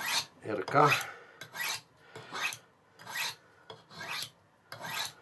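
M390 steel knife edge drawn by hand along a sharpening rod in about seven short, evenly paced strokes. The edge is being roughened to a coarser, more aggressive finish.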